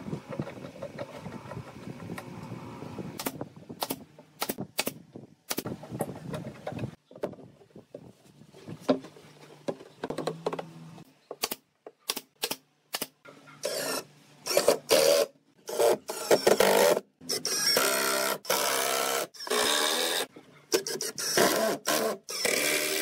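A pneumatic nail gun firing a string of sharp shots into wood. In the second half, a power drill drives screws into the wood in several bursts of about a second each, whirring and stopping between screws.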